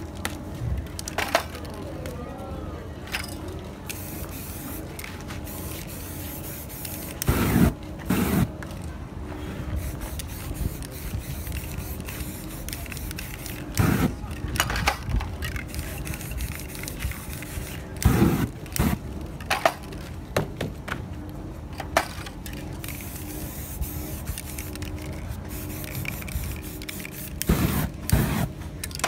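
Aerosol spray-paint can spraying in several short bursts a few seconds apart, over a steady background hum.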